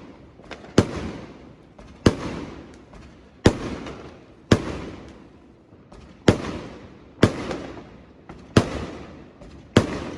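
Aerial fireworks bursting: a sharp bang about every second, eight in all, each followed by a fading rumble and crackle.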